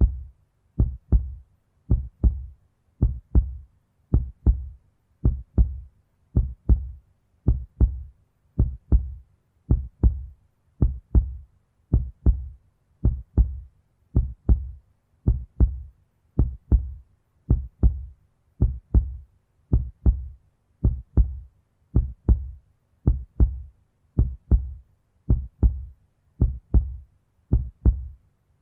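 Heartbeat sound effect: a steady lub-dub rhythm of paired low thumps at about one beat a second.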